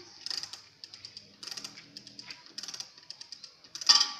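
Bursts of rapid clicking and rattling, with a louder clatter near the end.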